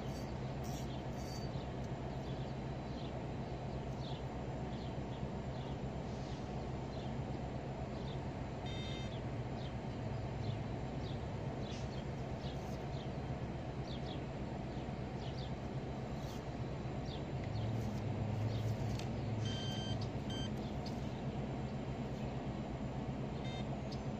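Outdoor river-bank ambience: a steady low hum of distant traffic, with many short bird chirps scattered throughout. Two short runs of brief high beeping notes come about 9 seconds in and again about 20 seconds in.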